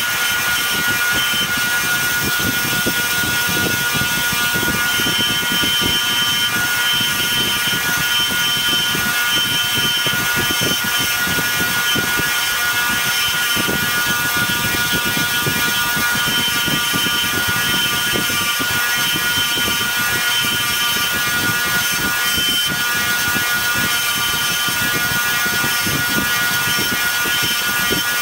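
Fine wire wheel on a Foley 1055 grinder running with a steady motor whine while steel pipe-threader die pins are held against it. The wire scratches the hardened crud and swarf varnish off the dies.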